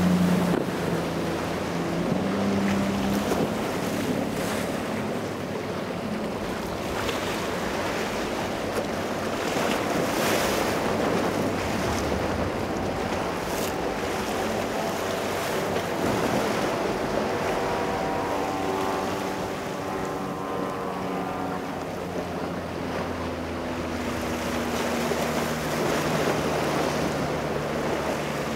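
Boat engines running past over a steady wash of surf and wind on the microphone. The engine sound is strongest at the start, fades, then returns with tones sliding in pitch as a boat goes by in the second half.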